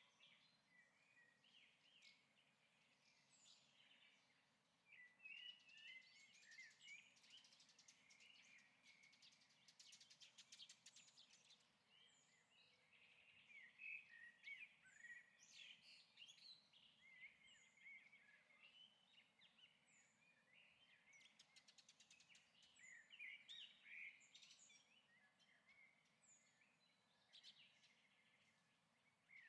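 Faint birdsong: several birds chirping and trilling in many short calls.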